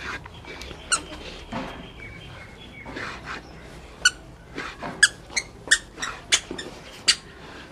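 Wooden spatula scraping and turning a crumbly rice-flour and jaggery mixture in an aluminium karahi, with a run of short, high-pitched squeaks, most of them from about four seconds in.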